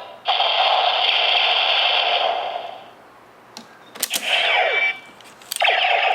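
DX Neo Decadriver toy belt playing its electronic Final Attack Ride sound effects through its small speaker: a sustained synthetic tone lasting over two seconds, sharp plastic clicks about three and a half and four seconds in, a short burst of falling pitch glides, then another click and a steady tone starting near the end.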